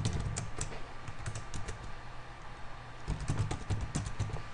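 Typing on a computer keyboard: a run of quick, uneven key clicks.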